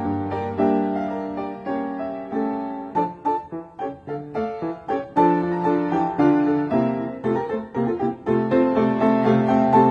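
Solo piano music. Quick, separate notes in the first half give way to fuller, louder chords about halfway through.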